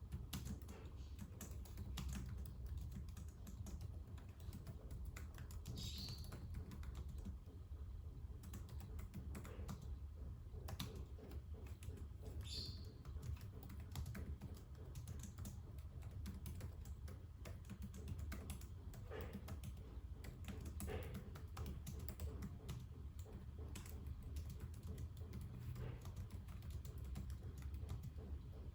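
Typing on a computer keyboard: a steady run of quick keystroke clicks over a low steady hum, with two brief high chirps, one about six seconds in and one past twelve seconds.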